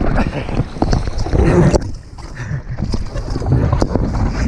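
River water rushing and splashing against an inflatable raft during a whitewater run, with heavy buffeting and knocks on a wet camera's microphone. About two seconds in, the sound turns sharply duller and muffled.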